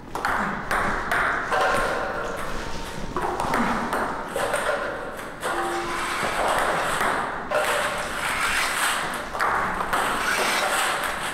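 A table tennis ball being struck with a paddle and bouncing on the table again and again during side-spin serve practice.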